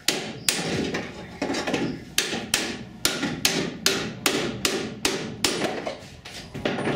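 Hammer blows on a car's steel front body, about two a second, each with a short metallic ring: panel beating to straighten the bent front end and chassis rail.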